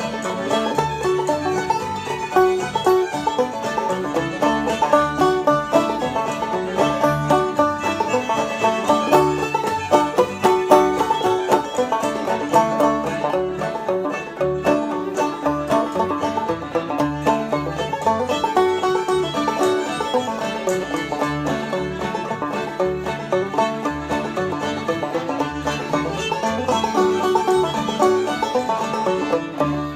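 Bluegrass-style instrumental music: a quickly picked string instrument over a steady, rhythmic bass line.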